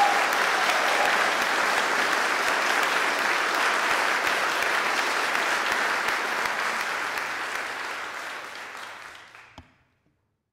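Audience applauding steadily, the applause fading away near the end.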